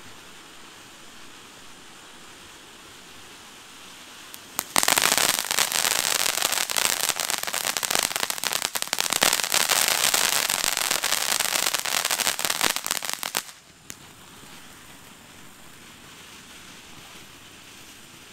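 Ground fountain firework crackling: after a faint hiss, a loud, dense rattle of rapid crackles bursts in about four and a half seconds in and runs for about nine seconds. It cuts off suddenly, leaving a faint hiss.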